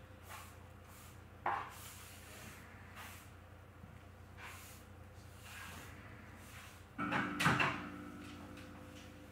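Mop strokes on a tiled floor, heard as faint repeated swishes. There is a sharp knock about a second and a half in, and near the end a louder clatter with a brief ringing.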